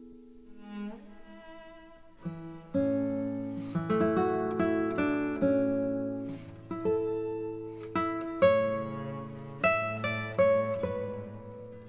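Background music of plucked strings. It is soft for the first couple of seconds, then fuller and louder from about three seconds in, with new notes struck roughly every half second.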